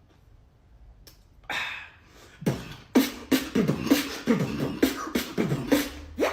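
Mouth beatboxing: after a short pause, a breathy hiss, then a fast rhythmic beat of deep kick-drum sounds that fall in pitch, alternating with sharp snare and hi-hat sounds, about three hits a second.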